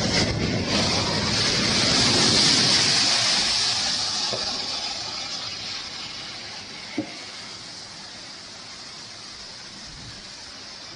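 A strong gust of wind rushing, swelling over the first few seconds and then slowly dying down. There is a single short knock about seven seconds in.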